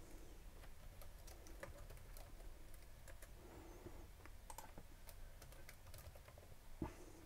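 Faint computer keyboard typing: a scattered run of light key clicks, with one louder click near the end.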